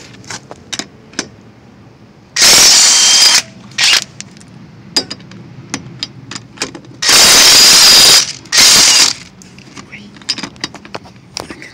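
Impact wrench running in four loud bursts, two of about a second and two short ones, loosening the wheel's lug nuts to take the wheel off. Light clicks and knocks sound between the bursts.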